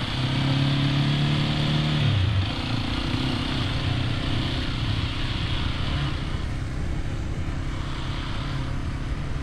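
Hero XPulse 210's single-cylinder engine running, its revs held steady, then falling about two seconds in and running on lower and steadier.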